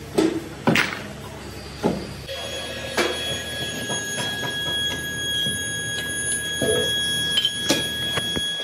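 Scrap metal pieces clanking sharply as they are picked up and dropped, then a steady high-pitched whine with scattered metal knocks around a foundry furnace.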